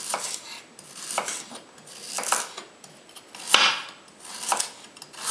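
Chef's knife slicing a carrot into rounds on a plastic cutting board: a crisp cut and knock of the blade on the board about once a second, five or so in all.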